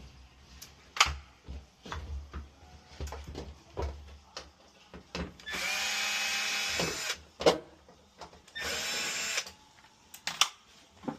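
Power drill running in two short bursts, the first about a second and a half long and the second about a second, with scattered knocks and clicks of handling around them.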